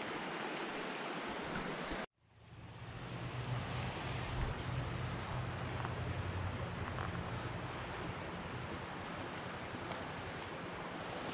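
Steady high-pitched insect buzz over an even hiss, with a brief dropout about two seconds in.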